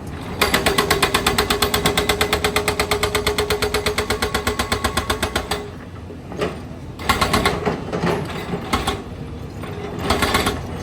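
Rapid mechanical hammering, about nine blows a second, running for about five seconds and then stopping suddenly, followed by scattered knocks and clanks from road-work machinery.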